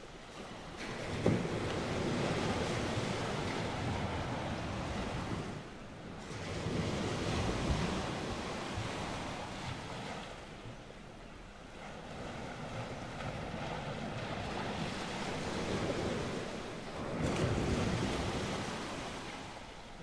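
Ocean waves washing in slow, rolling surges, swelling and fading about every five seconds.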